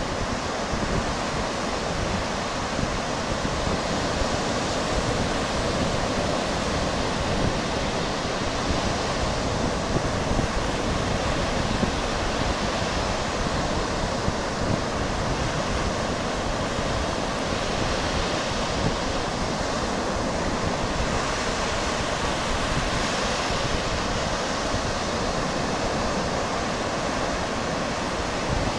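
Surf washing onto a beach, a steady rushing noise, with wind buffeting the microphone.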